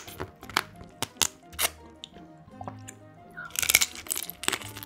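Close-miked eating of spicy marinated raw crab: sharp crunches and wet crackles of crab shell being bitten and sucked, with a louder, longer stretch of sucking about three and a half seconds in. Soft background music with held notes plays underneath.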